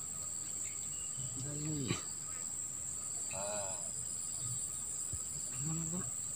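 Steady, high-pitched trilling of insects in the surrounding vegetation.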